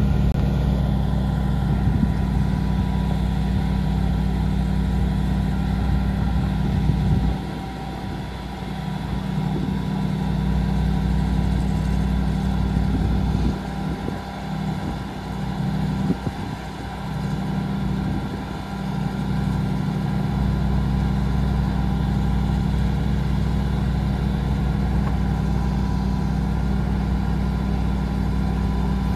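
1997 GMC TopKick bucket truck's engine running steadily while the aerial boom is raised. Its level dips for a few seconds about seven seconds in and again between about 13 and 20 seconds, then returns.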